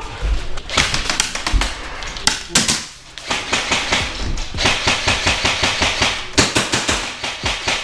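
Airsoft rifle firing strings of rapid shots, each a sharp clack, in a few short bursts and then a dense run through the second half.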